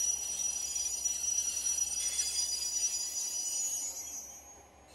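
Train wheels rolling slowly over station track with a steady high-pitched squeal, fading away near the end.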